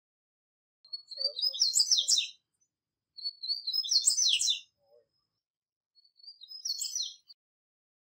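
Wild male double-collared seedeater (papa-capim) singing: three high, quick song phrases separated by short pauses, the last one shorter.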